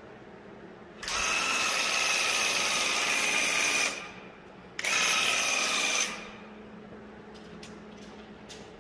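Graco handheld airless paint sprayer running while spraying paint onto a door: a loud buzzing pump with a hiss of spray, triggered twice, first for about three seconds and then, after a short pause, for just over a second.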